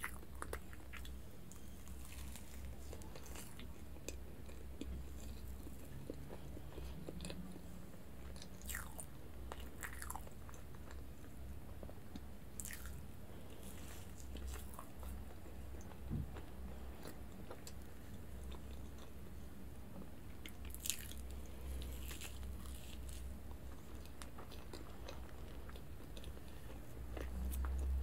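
Close-miked eating sounds: soft bites into a cream-layered sponge cake and chewing, with scattered small wet mouth clicks over a steady low hum. A low rumble swells near the end.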